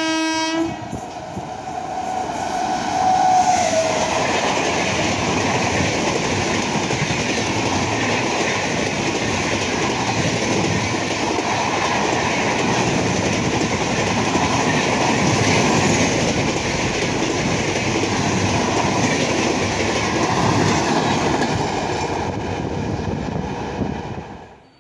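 WAP-7 electric locomotive's horn sounding a steady tone that stops under a second in. The express then passes close at speed, a loud sustained rush and clatter of wheels on rail from the locomotive and its passenger coaches, which cuts off abruptly near the end.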